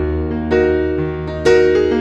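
Background music: slow electric piano chords, a new chord struck about once a second and left to ring.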